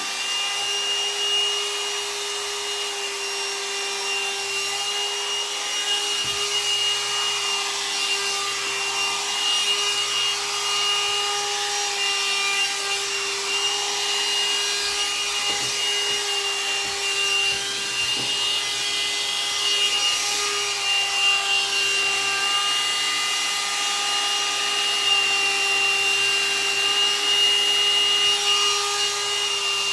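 Hot-air dryer brush (blow-dryer styler) running: a steady motor-and-fan whine over the hiss of blown air, as it is worked through the hair.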